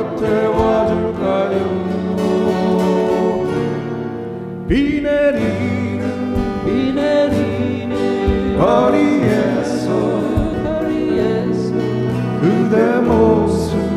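Live acoustic band playing a slow Korean ballad: several strummed and picked acoustic guitars with keyboard, amplified, and a singing voice carrying the melody in phrases that start afresh a few times.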